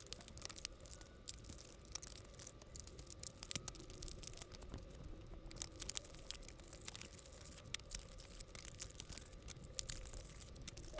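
Faint crinkling and crackling of plastic shrink-wrap being torn off trading-card blaster boxes, with many small irregular crackles.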